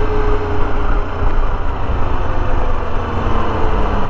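Honda XRE 300 motorcycle running at a steady riding speed: a constant engine drone mixed with heavy wind and road rush on the bike-mounted microphone.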